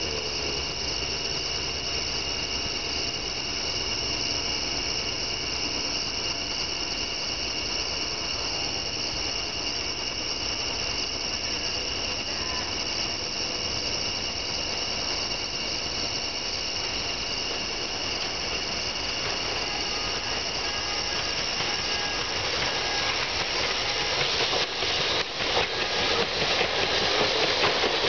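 A steady, high-pitched night insect chorus. In the last few seconds it is joined by the rising clatter of an approaching electric streetcar's wheels on the track.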